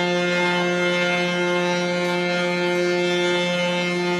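Ship's horn sounding one long, steady blast on a low note, a departure signal as the ship leaves the pier.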